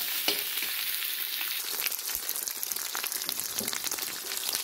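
Cubes of sheep's tail fat (kurdyuk) sizzling and crackling in a very hot cast-iron kazan, with no oil added, as they render out their fat.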